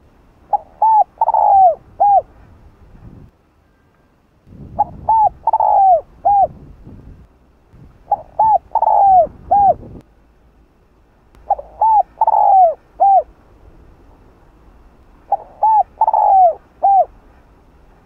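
Spotted dove cooing: five repeated phrases of about four notes each, one roughly every three and a half seconds. The third note of each phrase is the longest and loudest and falls in pitch.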